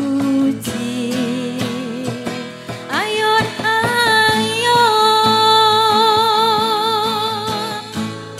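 A woman sings, accompanied by an acoustic guitar and a cajón keeping a steady beat. About three seconds in, her voice slides up into a long high note with vibrato, held until near the end.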